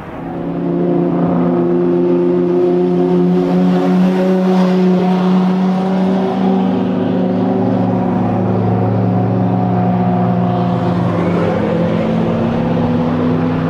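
An 1100 hp Toyota Supra straight-six engine in a BMW E30 M3, running on the move at fairly steady revs. It grows louder about half a second in, its note drops lower around six seconds in and climbs again near the end.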